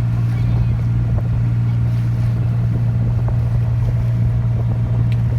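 Tender boat's engine running steadily with a constant low hum, over a rush of water and wind.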